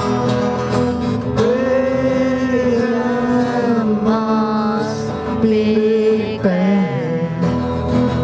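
Acoustic guitars strumming a steady chord while male voices sing long held notes over them.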